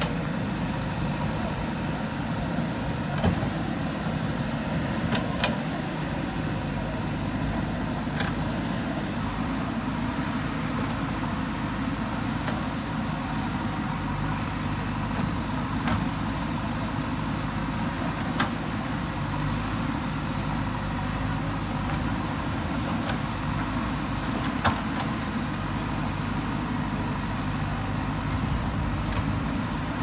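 JCB backhoe loader's diesel engine running steadily while the backhoe arm works the soil, with occasional sharp knocks.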